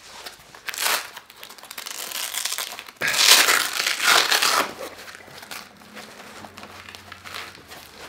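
Fabric plate carrier being handled and its plate pocket pulled open by hand: irregular rustling and scraping of the cloth, loudest from about three to four and a half seconds in, then quieter.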